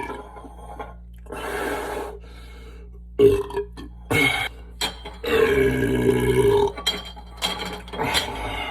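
A man belching several times: a medium belch a little over a second in, two short ones, then a long, loud belch from about five seconds to nearly seven, followed by a few short ones near the end.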